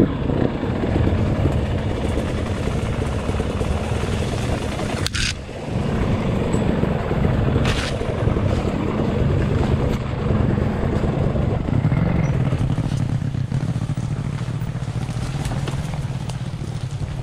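Steady low rumble of riding fast down a forest trail: wind and trail noise on a camera carried by the rider, with two sharp knocks from bumps about five and eight seconds in.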